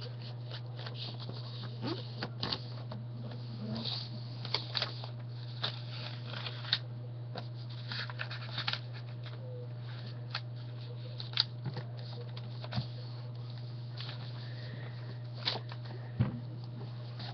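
A sheet of lined notebook paper being folded and creased by hand: scattered rustles and crisp crinkles, over a steady low hum.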